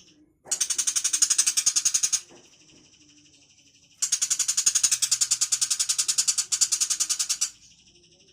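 Cendet macan shrike giving two bursts of rapid, harsh chattering, a fast even rattle of many notes a second; the first lasts about two seconds, the second about three and a half with a brief break near its end. A fainter steady high buzzing tone carries on between the bursts.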